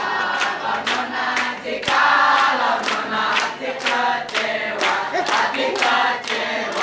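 A large group of young people singing together, with hand claps keeping an even beat.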